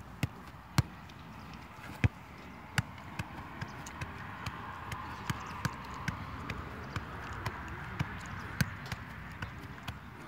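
A football juggled off the feet and legs: a steady run of short taps, about two a second, as the ball keeps bouncing off the player's boots and legs.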